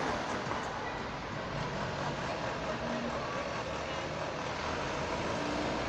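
A city bus's engine running as the bus pulls slowly past, over steady street traffic noise.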